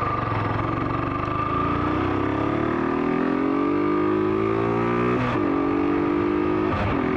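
Yamaha FZ V2 motorcycle engine with a K&N aftermarket air filter, accelerating under load. The engine note climbs steadily, drops sharply at a gear change about five seconds in, and breaks again at another shift near the end.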